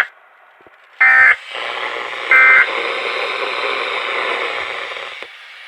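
Two short, harsh digital data bursts of the SAME emergency-alert code on a Weatheradio Canada broadcast, a little over a second apart, with steady radio hiss around them.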